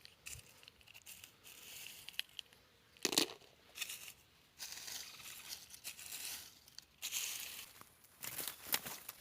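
Irregular crinkling and tearing noises of dry material being handled, with one sharp crack about three seconds in.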